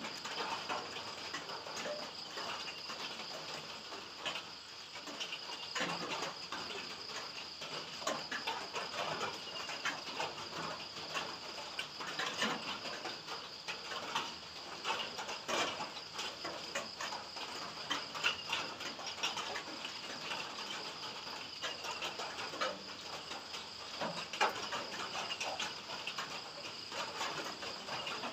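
Insects chirring steadily at a high pitch, with scattered light ticks and taps over it.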